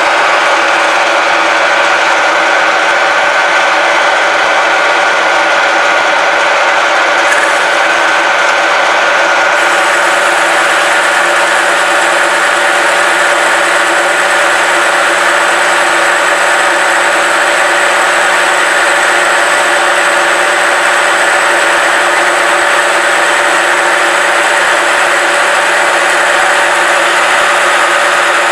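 Metal lathe running steadily, its drive and gears giving a constant whine of several steady tones, while the cutting tool turns down a metal shaft.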